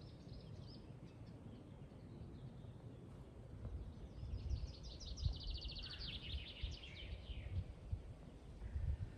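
A songbird sings a fast trill about four seconds in, ending in a short falling flourish, over a low outdoor rumble.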